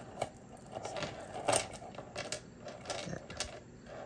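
Silver-tone metal Otazu charm necklace clinking and rattling against itself and the tabletop as it is handled and laid out: an irregular run of small metallic clicks, with the loudest clink about a second and a half in.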